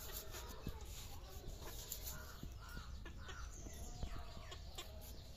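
A knife peeling a raw potato by hand, giving short scraping clicks now and then, with birds calling in the background.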